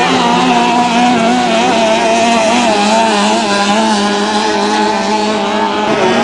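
Racing three-point hydroplane's engine running flat out, a loud steady high engine note that wavers up and down in pitch.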